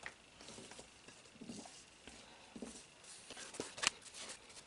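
Faint rubbing and scraping of hands and a knife working pieces of bread dough on a baking mat, with a couple of sharper clicks near the end.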